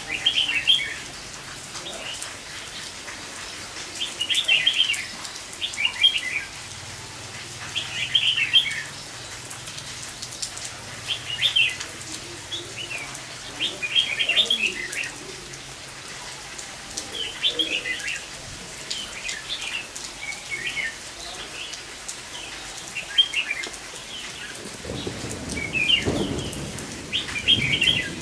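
Red-whiskered bulbuls giving short bursts of chattering 'ché' challenge calls every two seconds or so, a wild bird still scolding at a caged decoy despite the rain, over steady rain. A low rumble of thunder rolls in near the end.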